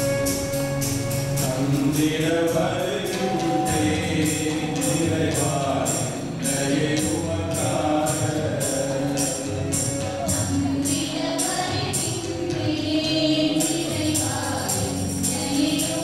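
Group singing a hymn with keyboard accompaniment and a steady high percussion beat of a few strikes a second.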